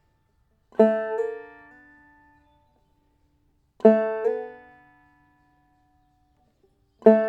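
Clawhammer banjo playing three slide examples about three seconds apart: each time a note is struck and rings, then shifts in pitch with a second attack about half a second later before dying away. The third begins near the end.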